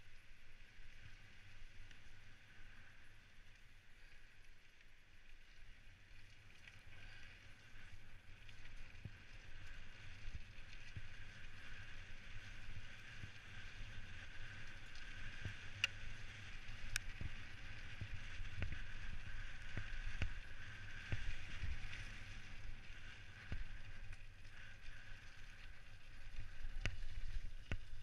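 Specialized Stumpjumper mountain bike descending a gravel trail at speed: tyres rumbling over loose stones, with a steady rushing hiss and frequent irregular knocks and rattles from the bike, a couple of sharp clicks about halfway through. It gets louder from about a third of the way in as the speed builds.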